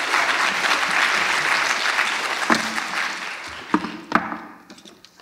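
Audience applauding, dying away over about four seconds. A few sharp knocks come through as it fades.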